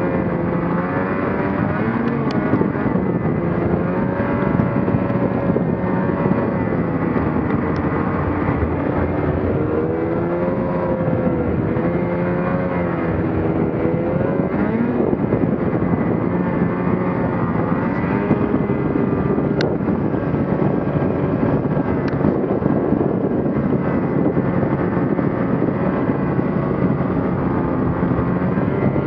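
Ski-Doo Gen 4 850's two-stroke twin engine running under way, its pitch rising and falling again and again with the throttle, over a steady noise.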